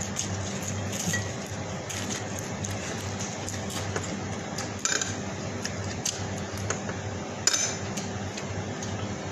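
Metal spoon and fork clinking and scraping against a ceramic bowl during a meal, in scattered short clicks, with the sharpest knocks about five seconds in and again near the end. A steady low hum runs underneath.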